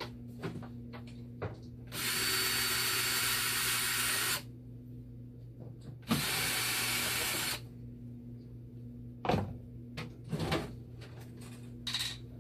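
Cordless drill/driver running in two bursts of about two seconds and one and a half seconds with a high whine, backing out the screws of a dialysis machine's front cover panel. A few sharp knocks follow as the loosened panel is taken off.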